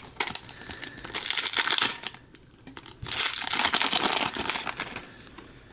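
Foil trading-card pack wrapper being torn open and crinkled, in two noisy bursts of about a second each.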